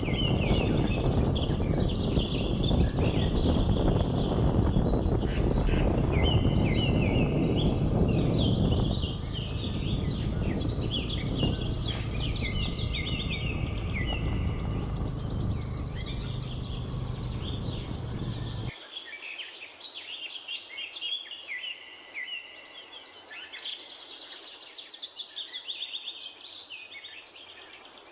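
Many birds chirping and singing over a low rushing noise. The rushing weakens partway through and cuts off abruptly after about two thirds, leaving the birdsong on its own.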